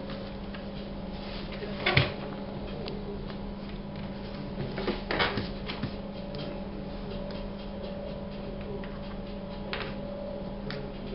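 A steady low electrical hum, with a sharp knock about two seconds in and a short cluster of knocks and taps around five seconds in.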